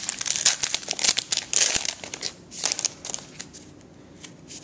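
Crinkling of a trading-card pack wrapper as it is torn open and handled. The crackle is busiest for the first two seconds, with one more rustle a little later, then it dies down to a few soft clicks.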